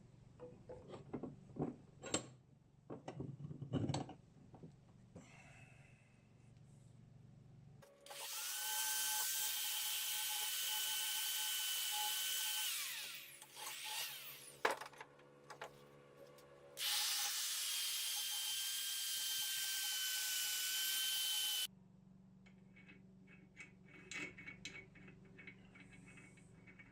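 Small handheld power tool running steadily at high speed with a high whine, twice for about five seconds each; the first run winds down as the motor slows. Light metal clinks and handling knocks come before and after the runs.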